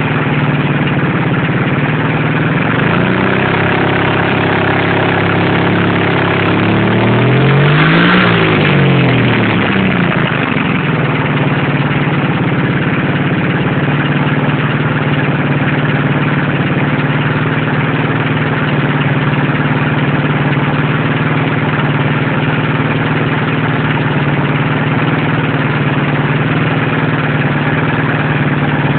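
Subaru KT6 Sambar's 550cc EK23 engine running after repair, idling steadily. Its speed steps up slightly about three seconds in. About eight seconds in it is revved once, rising and falling back to idle.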